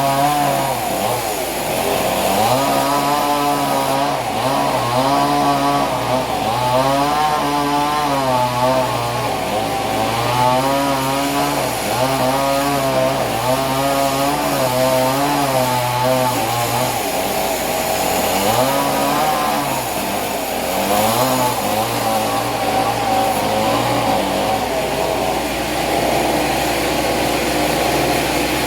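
Chainsaw engine revving up, holding and dropping back again and again, about once every second or so, as in repeated cuts. It settles into a steadier run near the end.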